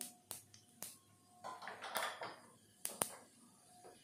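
Mustard seeds popping in hot oil: scattered sharp pops at irregular intervals, over a light sizzle around the middle.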